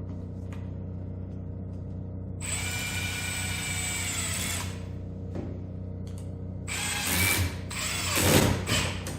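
Power drill running in two bursts of about two seconds each, a steady motor whine; the second run is louder and more uneven towards its end.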